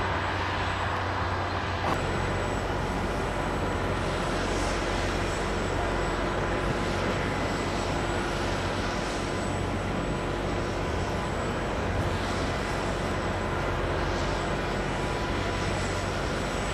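Heavy construction machinery running: a steady, continuous diesel engine drone from the building site's excavators and ground-drilling rig.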